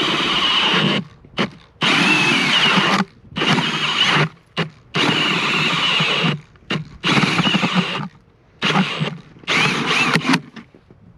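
Milwaukee M18 Fuel cordless drill turning an Eskimo 8-inch pistol bit auger into thick ice, with a high whine. It runs in about seven short bursts of a second or so, cutting out and starting again each time. The drill keeps bogging down, which the owner puts down to a setting on the drill.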